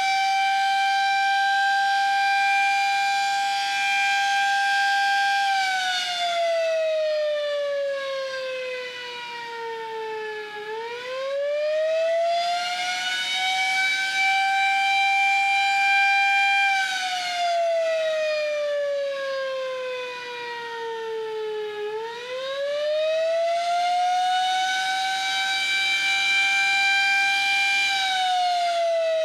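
Sterling Model M electromechanical siren sounding the attack/wail signal. Its pitch holds high for several seconds, slides down over about five seconds, then quickly winds back up, in a cycle that repeats twice.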